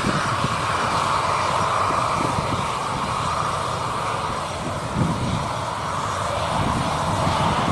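Jet airliner engines running in a steady, continuous rush, with strong wind buffeting the microphone in irregular low gusts.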